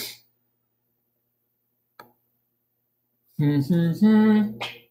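Near silence for about three seconds, broken only by a faint click about two seconds in, then a man's voice for the last second and a half without clear words.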